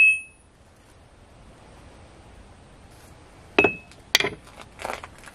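Hammer striking the face of an anvil chained to a wooden stump in a ring test: a strike at the start gives a brief high ring that dies away in under half a second, the stump mount deadening it. About three and a half seconds in comes another strike with a short ring, then a few lighter clanks of the hammer on the anvil.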